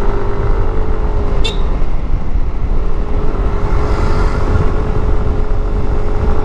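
Yamaha NMAX scooter under way, its engine and drive holding a steady hum under a heavy low rumble of wind on the microphone.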